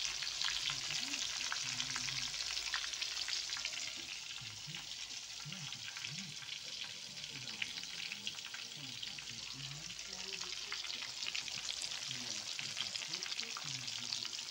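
Hot oil sizzling and crackling steadily as slabs of tempeh deep-fry in a wok. The sound cuts off suddenly at the end.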